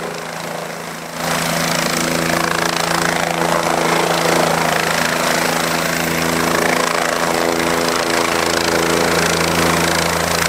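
A helicopter hovering low as it comes in to land, its rotor and engine running steadily: a hum on several pitches under a broad rushing noise. The sound jumps louder about a second in and then holds.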